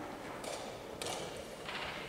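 Room noise of a playing hall, with a few soft knocks and a short hiss near the end.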